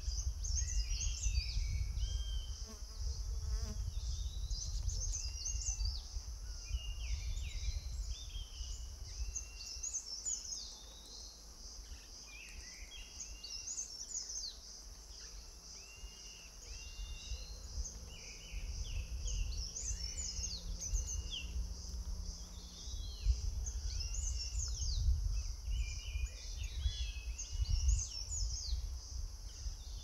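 Forest ambience: a steady high insect drone with a fast pulse, with a small songbird singing short chirping phrases every few seconds over a low rumble.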